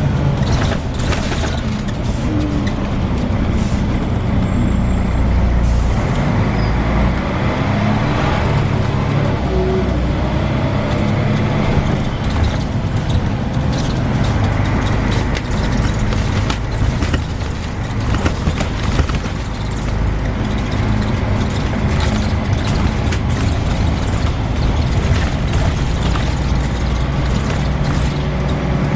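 Volvo B10BLE single-decker bus heard from on board while driving: its diesel engine and drivetrain run continuously, rising in pitch over the first few seconds as it pulls away, then steady.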